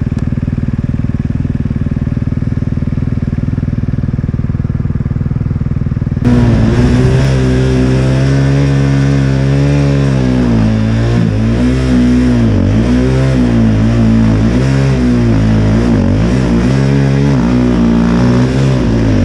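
KTM snow bike's engine running steadily while being ridden. About six seconds in the sound changes abruptly and becomes louder, with the engine revving up and down over and over as the throttle is worked.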